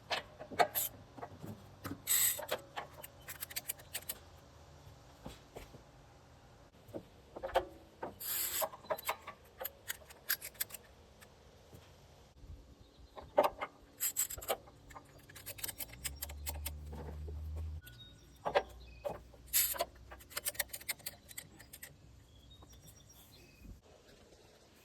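Retractable ratchet tie-down straps being hooked on and tightened: irregular spurts of webbing rasping and sharp ratchet and hook clicks. A low hum sounds for about two seconds past the middle.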